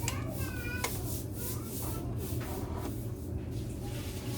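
Light handling noises of repair work, small clicks and rubbing, over a steady low hum, with a brief squeak about half a second in.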